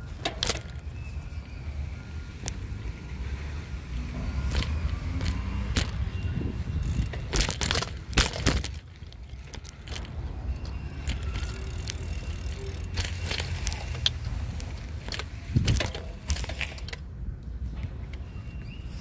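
Bicycle being ridden with the camera mounted on it: a steady low rumble of the ride, broken by frequent sharp rattling clicks and knocks as the bike jolts, with a cluster of them around the middle.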